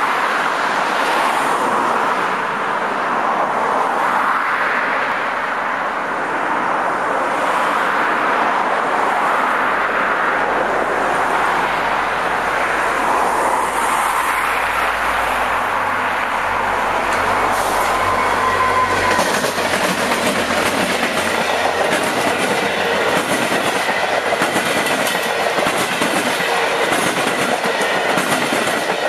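Road traffic going by, then a Via Rail passenger train approaching and passing close. From about two-thirds of the way in, the cars' wheels click rapidly over the rail joints.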